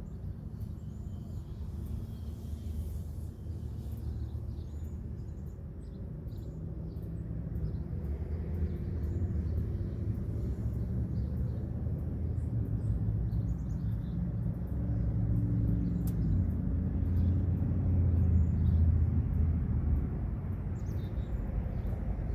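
Outdoor traffic rumble: a vehicle's engine running low and steady, growing louder through the second half and peaking a few seconds before the end, with faint bird chirps above it.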